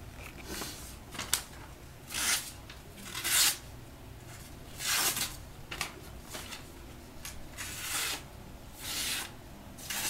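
Freshly sharpened kitchen knife slicing through a sheet of paper in a series of short swishes, about one every second or so, as the edge is tested for sharpness.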